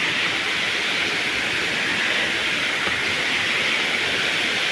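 A waterfall rushing: a steady, unbroken hiss of falling water.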